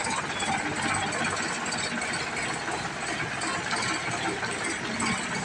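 Sonalika DI 745 III Sikander tractor's diesel engine running steadily at low speed as the tractor moves slowly forward.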